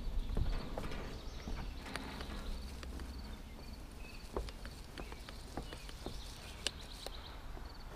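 Scattered light knocks and footsteps on wooden deck boards, with faint repeated high chirps in the background.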